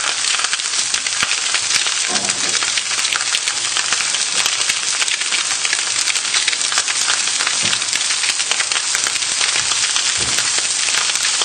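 Fish fillets frying skin side down in hot oil in a non-stick pan: a steady sizzle with fine crackling, the skin crisping.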